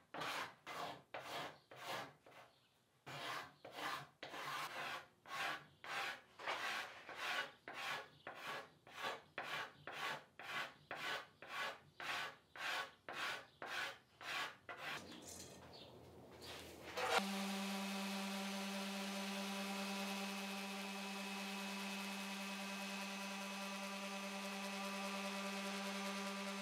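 A steel card scraper drawn over stripped wood in quick, even strokes, about two a second, scraping old finish out of the grain. The strokes fade, and then a random orbit sander starts suddenly and runs steadily with a constant hum, sanding a walnut-veneer tabletop.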